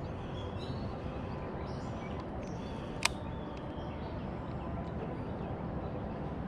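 Steady outdoor background noise with one sharp click about three seconds in.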